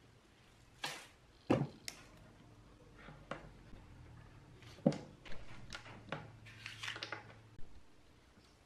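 Heavy power transformers being handled on a plywood board: a few sharp knocks and dull thumps as they are set down and shifted, the strongest about one and a half seconds in and again near the middle. Lead wires are rustled and clicked between them, and near the end a cloth rubs over a transformer's casing.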